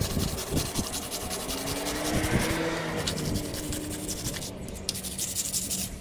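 Wire brush scrubbing a metal door hinge on wet concrete in quick back-and-forth strokes, scouring off paint softened by paint stripper.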